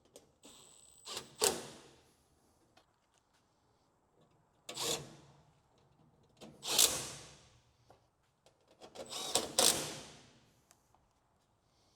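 Sheet-metal washing machine cabinet panels being handled and fitted back on: four loud knocks with short scraping slides, spaced a few seconds apart.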